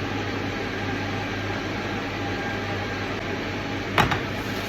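Steady machine-like hum and hiss, with one sharp knock or clink about four seconds in.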